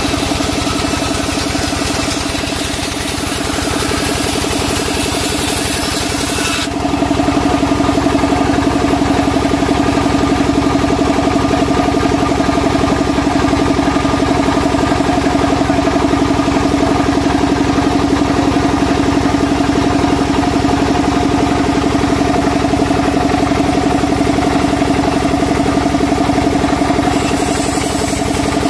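Sawmill band saw running steadily as a timber beam is fed through it: a continuous machine drone with a steady hum. It gets louder and fuller about seven seconds in.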